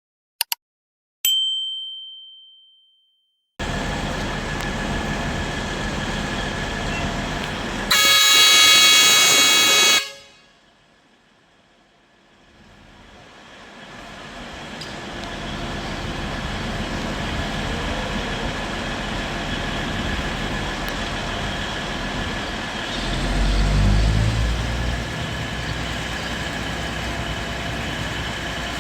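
A diesel locomotive's horn sounds one steady blast of about two seconds over station ambience. Later a low engine rumble swells briefly.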